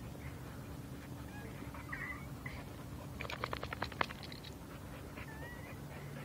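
Faint, high whines from a dog, with a rapid run of about a dozen scratchy strokes a little past halfway.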